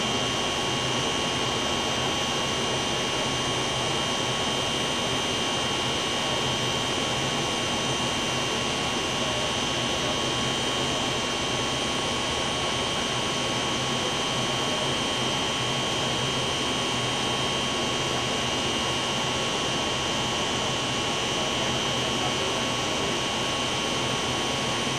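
Steady machinery noise with a constant high-pitched whine over it.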